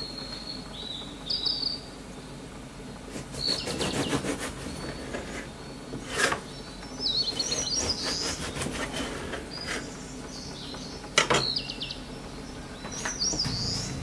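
Bread knife sawing through a crusty rye loaf, the crust crackling and rasping in groups of strokes, with one sharp knock about eleven seconds in. Small birds chirp every few seconds in the background.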